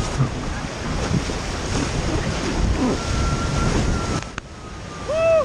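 Wind buffeting the microphone over a steady rush like ocean surf, with a short arched high call near the end.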